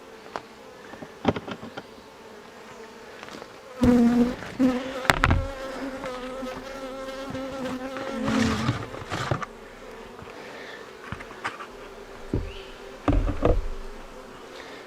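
Honeybees buzzing around an open hive, with one bee hovering close by in a steady hum for several seconds from about four seconds in. A few short knocks and handling sounds come and go over the buzzing.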